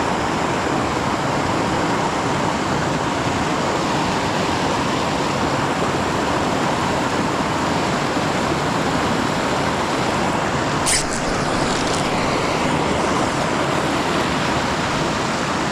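Creek water rushing in a steady, even hiss, with one brief sharp high tick about eleven seconds in.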